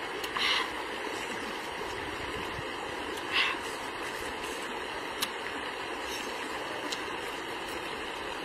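River water flowing steadily over rocks. Two short hissing sounds come about half a second and three and a half seconds in, with a few faint clicks later.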